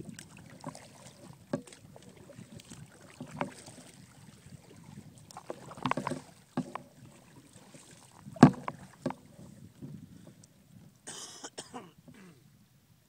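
Kayak paddle strokes on a Jackson Coosa fishing kayak: blades dipping and splashing through the water, with scattered sharp knocks, the loudest a little past the middle. A short hissing splash comes near the end.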